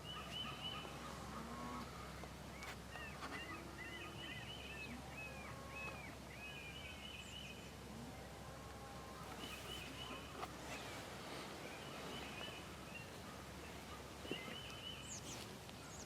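Faint bird-like calls repeating in short groups of clipped notes, some flat and some arching in pitch.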